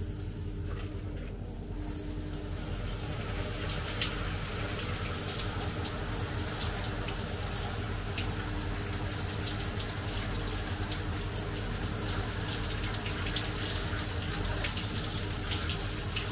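Shower spray running, water splattering onto a metal mesh sieve and onto a person in a tiled shower cubicle; the hiss builds over the first few seconds, then runs steadily with fine crackling splashes.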